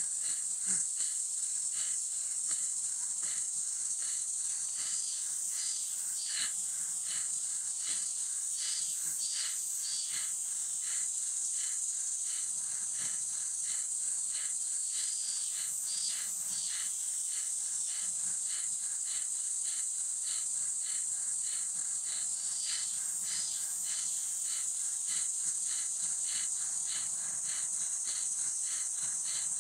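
Insects droning steadily and high-pitched, with a regular pulsing about twice a second.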